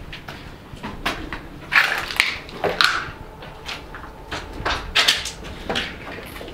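Footsteps on a debris-strewn floor or stairs: irregular knocks and short crunching bursts, about two a second.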